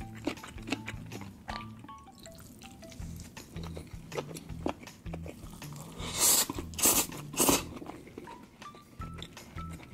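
A man slurping noodles loudly three times, about six to seven and a half seconds in, with chewing and small wet mouth clicks around them. Background music with a low stepping bass line plays throughout.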